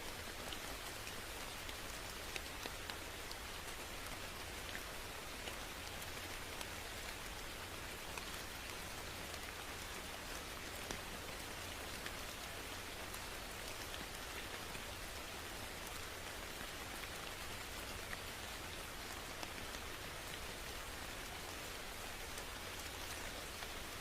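Steady rainfall, a constant hiss of rain with many small drops pattering on a surface.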